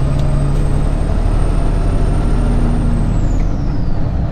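Semi truck hauling a heavy load, its diesel engine and road noise heard inside the cab as a steady low rumble, with a thin high whine that slides down and fades about three seconds in.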